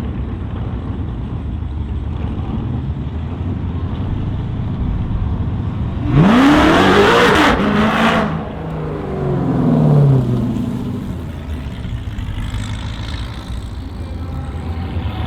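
A car engine rumbling steadily, then about six seconds in a car accelerating hard at full throttle. Its engine note climbs and is loudest for about two seconds, then falls away with a second, smaller surge as it moves off.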